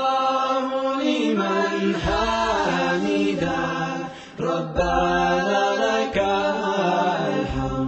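Soundtrack music of sung voices: an Islamic vocal song (nasheed) whose singers hold and glide between long notes over a steady low held note, with no clear words.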